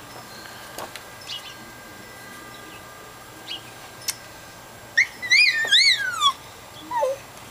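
Backyard birds calling: a few short high chirps, then a loud warbling call that swoops up and down and ends in a falling slide about five seconds in, followed by a short falling note.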